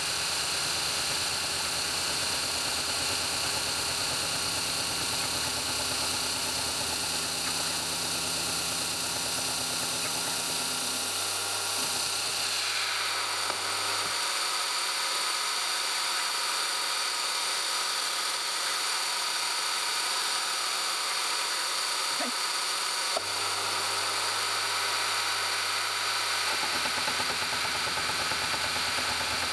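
Milling machine running steadily as its gear cutter cuts teeth into a steel gear blank. About twelve seconds in, the pitch of the whine slides down and the low hum drops away for several seconds before it returns.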